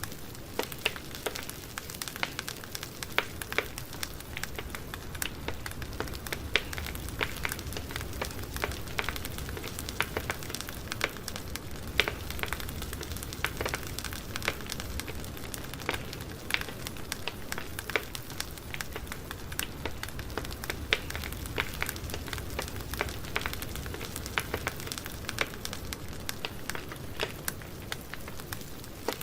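Campfire burning, wood crackling and popping in frequent, irregular snaps over a steady hiss and low rumble of the flames.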